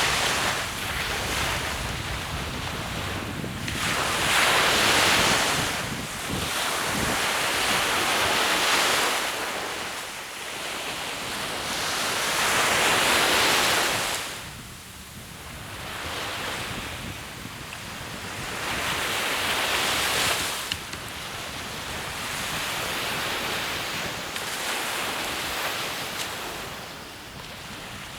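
Ocean surf on a sandy beach: waves breaking and washing in, the rush swelling and easing every few seconds.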